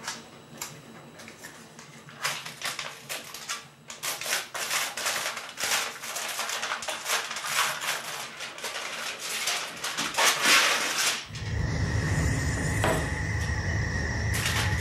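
Aluminium foil crinkling and rustling irregularly as it is handled and folded around a fish. About eleven seconds in this stops suddenly and a steady low hum with a high steady tone begins.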